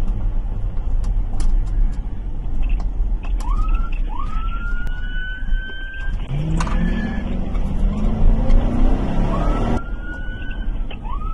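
Police cruiser's siren sounding in several short rising sweeps that cut off and start again, over the patrol car's engine and road noise. About halfway through, the engine climbs in pitch as the car accelerates.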